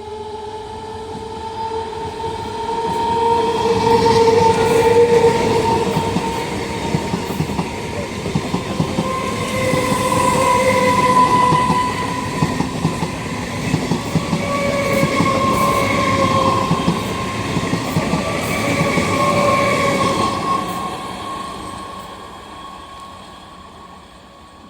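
A train passing close while sounding its horn: one long blast, then three shorter blasts, over the rumble and clatter of wheels on the rails. The noise fades away near the end.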